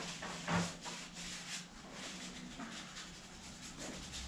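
Hand scraping and wiping on the engine block while its surfaces are cleaned: irregular rubbing strokes, the loudest about half a second in.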